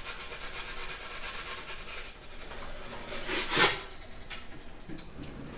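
Wooden pizza peel scraping against the pizza stone as a pizza is slid off it, with a louder, quick scrape about three and a half seconds in as the peel is pulled back out.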